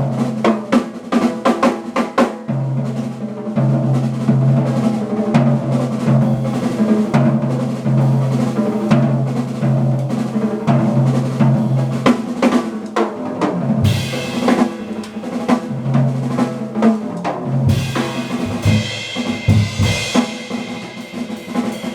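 Jazz combo playing, with the drum kit to the fore: quick snare and bass drum strokes over long held bass notes. Bright cymbal-like sound joins about two-thirds of the way through.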